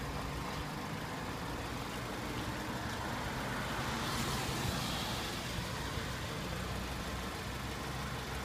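Car engine idling with a steady low hum, and a rush of passing traffic swelling and fading about four seconds in.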